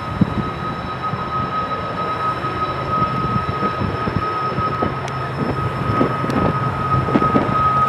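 Heavy Union Pacific freight train with diesel locomotives working hard at crawling speed up a steep grade. The engines make a low, steady rumble, with scattered knocks and a steady high whine over it.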